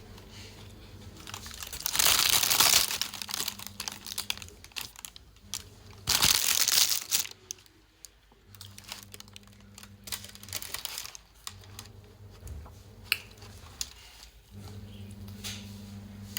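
Paper wrapping crinkling and rustling as a stuffed kota loaf is handled up close, loudest in two bursts about two and six seconds in, with smaller crackles between. A low hum comes and goes underneath.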